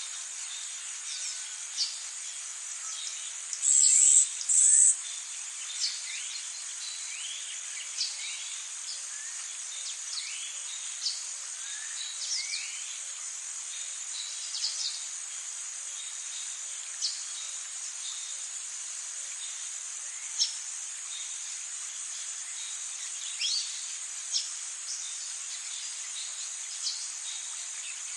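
Forest ambience: a steady high-pitched insect chorus, with scattered short bird chirps and rising calls throughout. Two short, loud, high buzzes come about four seconds in.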